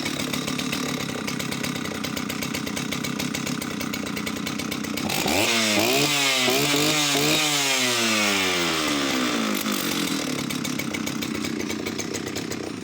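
Oleo-Mac 272 two-stroke chainsaw idling steadily, then revved up and down in several quick throttle blips about five seconds in, winding back down to idle. The owner judges it runs flawlessly apart from the odd misfire, which he puts down to lack of use.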